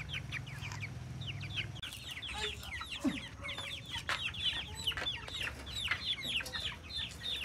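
Chickens calling: a constant stream of many short, high, falling calls overlapping one another.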